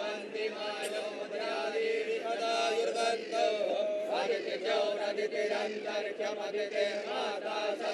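A Hindu priest chanting Sanskrit puja mantras in a continuous, melodic male voice.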